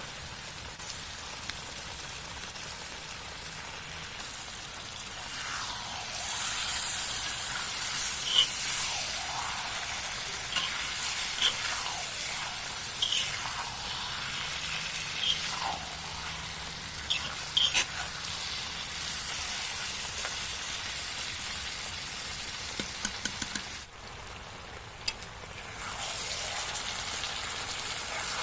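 Fatty pork sizzling as it fries in a pan, with a spatula stirring and scraping against the pan in short, scattered strokes for a stretch in the middle. The sizzling drops away briefly near the end, then resumes.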